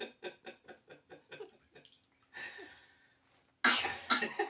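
Laughter in a rhythmic run of short pulses, about five a second, fading away, then a breath, and a loud sudden outburst of voice near the end.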